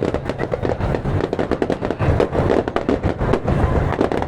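Fireworks going off in a dense, continuous barrage of bangs and crackles, many pops a second over deeper booms.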